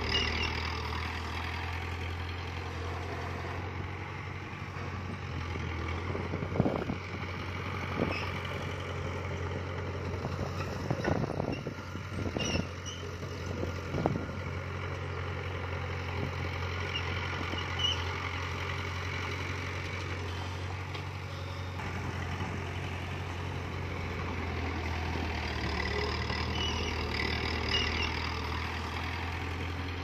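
Heavy diesel engine running steadily at low speed, with a handful of sharp metallic clanks and knocks in the middle stretch.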